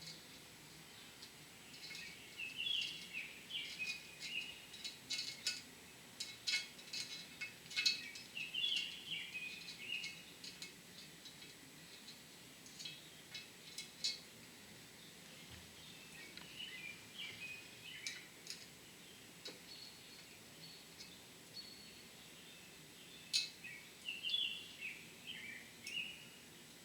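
A small bird chirping in short repeated bursts, mixed with light metallic clicks and clinks from hand work on valve springs and keepers.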